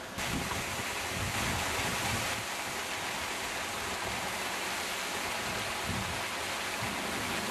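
Fountain jets splashing into a pool: a steady rush of falling water that starts abruptly just after the beginning and cuts off just before the end.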